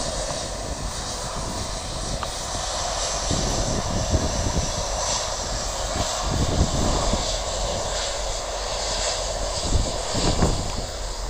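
Boeing 757-200 jet engines running steadily at low power as the airliner taxis, a continuous jet hiss and rumble. Gusts of wind buffet the microphone.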